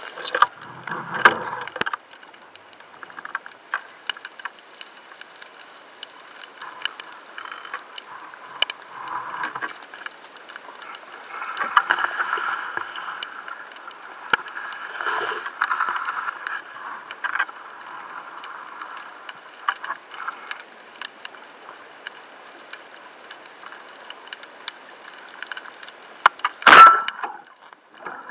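Underwater sound picked up by a camera mounted on a speargun: continual small clicks and crackles with the rush of water as the diver moves. One loud, sharp crack comes near the end.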